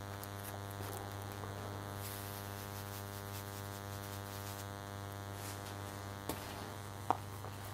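Steady electrical mains hum with a stack of even overtones, and two short faint clicks near the end.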